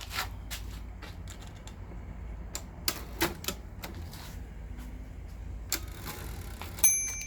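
1947 Royal KMM manual typewriter being typed on, its keys striking one at a time at an uneven pace. Near the end it gives a single bell-like ding that rings on.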